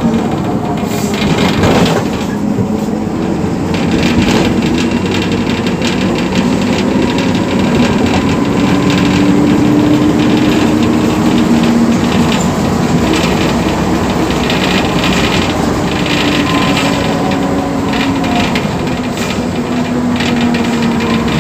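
Volksbus 9-150 EOD bus's MWM 4.12 TCE four-cylinder diesel running, its engine note rising and falling slowly as engine speed changes, with a constant rattle over it.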